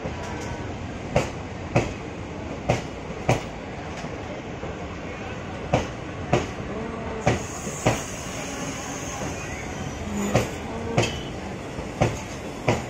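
Passenger coaches of an express train rolling slowly over a rail joint, the wheels clacking in pairs, one bogie after another, over a steady rumble. A faint high squeal comes in about seven seconds in.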